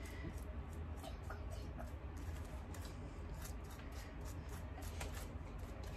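A brush spreading Mod Podge over cellophane on a tumbler: faint, irregular light ticks and rustles over a low steady hum.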